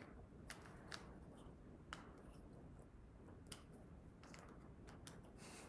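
Faint, scattered clicks of plastic snap-together fraction cubes being handled and fitted together, about eight over a few seconds, against near silence.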